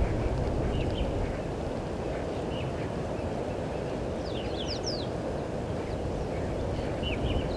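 Wild birds calling over a steady low outdoor rumble: scattered short chirps, with a quick run of high sweeping notes about four seconds in and another near the end.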